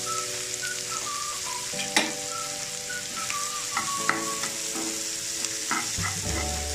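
Chopped small onions sizzling in hot oil in a nonstick pan while a spatula stirs them, with a few sharp taps of the spatula against the pan.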